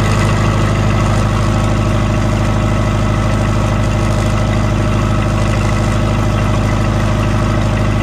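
Perkins 4.108 four-cylinder diesel engine of a generator set running steadily at no load, its exhaust nice and quiet at the outlet on top of the closed enclosure. It is still warming up after a cold start.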